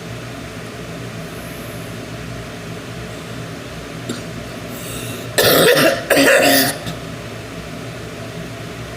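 A woman coughing twice in quick succession, two harsh coughs just past halfway through, over a steady background hum.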